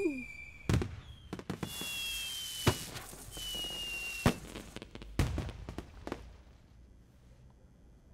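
Fireworks sound effects: rockets whistling high as they go up and bursting with sharp bangs, about five in the first five seconds, then dying away.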